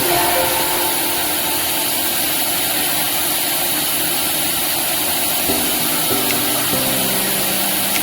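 Flux-cored arc welding on galvanized pipe: a steady, continuous arc hiss and crackle. Faint background music plays over it near the start and again late on.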